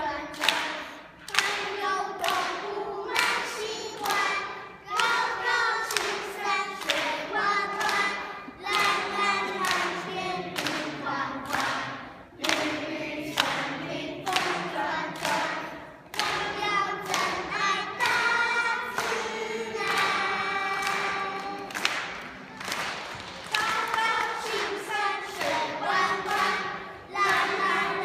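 A group of children singing together unaccompanied, with a steady beat of claps and thumps about every half second.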